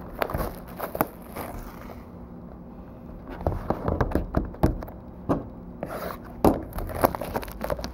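Hands opening a sealed box of hockey trading cards: cardboard and wrapper scraping and crinkling, with scattered sharp taps and clicks, quieter for a moment in the middle.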